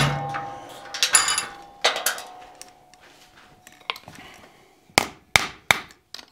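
Hand hammer striking a touch-mark punch, held in tongs against the hot steel bottle opener. The strikes come at the start and twice more in the next two seconds, each with a short metallic ring. Near the end come three quick sharp hammer blows as the piece is knocked flat on the anvil face.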